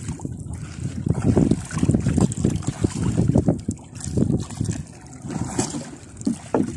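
A wooden paddle dipping and pulling through the water beside a small outrigger canoe, making irregular splashes and sloshing, with wind rumbling on the microphone.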